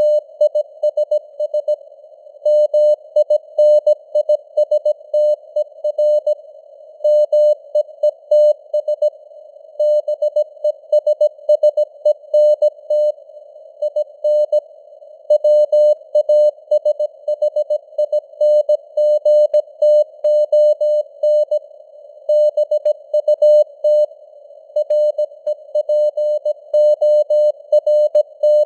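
Morse code sent at 17 words per minute: a steady mid-pitched tone keyed on and off in dots, dashes and word gaps, over a narrow band of simulated shortwave radio hiss.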